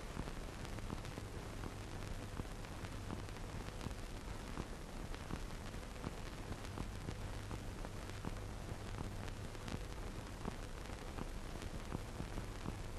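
Steady hiss of a worn old film soundtrack, with scattered faint crackles and a low hum underneath.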